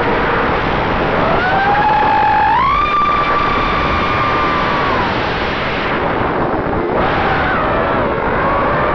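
Quadcopter's Emax RS2205 2300kv brushless motors and propellers whining under a heavy rushing noise of prop wash and wind, heard through the onboard camera's microphone. The pitch climbs in two steps in the first few seconds, holds high, drops away about five seconds in, and rises again near the end as the throttle changes.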